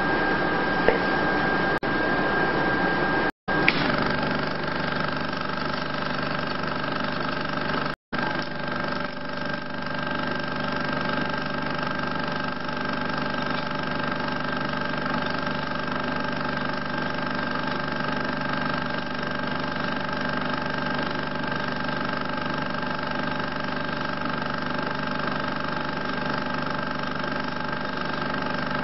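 16 mm film projector running: a steady mechanical whirr with several constant humming tones, cutting out for an instant twice, about three and eight seconds in.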